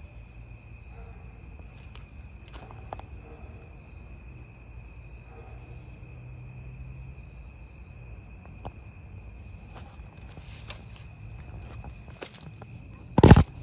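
Crickets trilling steadily in a night insect chorus, with a pulsing higher trill above it. There are faint crunches of dry leaves underfoot, and a loud sudden thump near the end.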